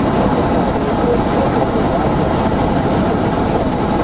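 Road noise and wind rushing past a moving vehicle, picked up by the camera's microphone as a loud, steady rumble.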